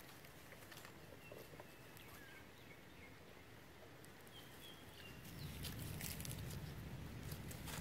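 Quiet outdoor ambience with a few faint, short, high chirps and scattered light clicks. A low rumble comes up about five seconds in.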